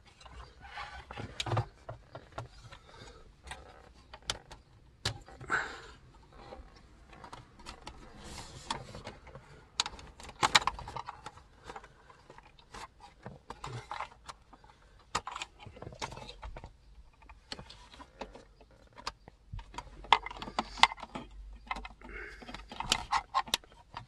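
Hard plastic dashboard trim and air duct being worked loose and lifted out by hand, with many scattered sharp clicks and knocks and short rustles, and wiring and connectors being handled.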